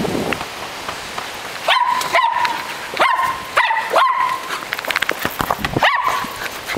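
Small terrier barking in short, sharp, high barks, about six in all: five fairly close together, then a pause of nearly two seconds before the last.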